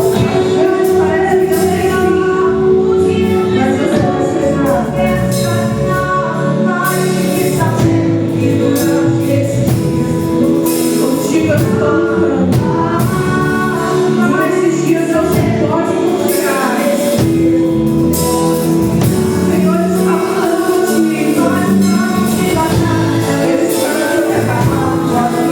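Gospel worship song: a band playing while a group of voices sings.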